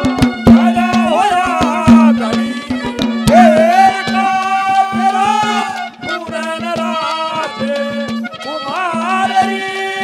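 Live Haryanvi folk stage music: a melody that slides between notes over a steady drone, with hand-drum strokes, dense for the first three seconds or so and then sparse.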